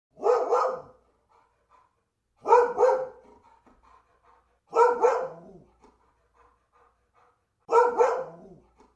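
A dog barking four times, each bark a short double call a couple of seconds apart.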